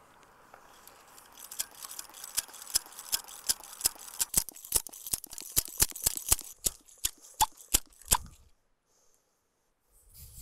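Small hand air pump being stroked to pressurise the steam motorcycle's kerosene tanks so the fuel flows to the burner under pressure: a steady run of sharp clicks, about three a second, that stops a couple of seconds before the end.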